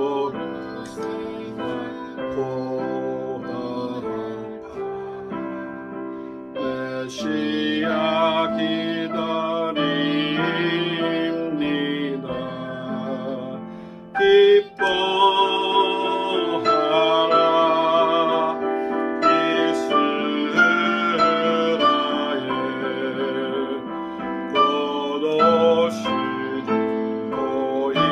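A hymn sung with piano accompaniment, the voices holding slow notes with vibrato, with a short break between phrases about halfway through.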